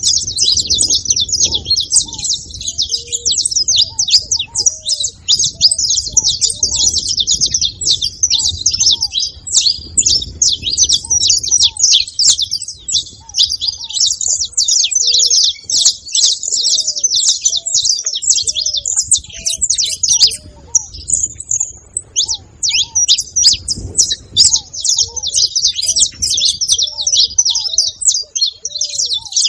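Several saffron finches chirping and trilling busily and without pause, many rapid high notes overlapping, with a brief lull a little past the middle. Fainter, lower short call notes repeat underneath.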